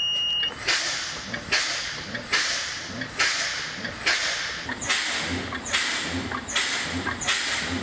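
Fire engine air brakes being fanned: each press and release of the foot brake vents compressed air with a short hiss and a low thump, about nine in a row, a little more than one a second, bleeding down system pressure to bring on the low air warning. A steady high electronic beep stops about half a second in.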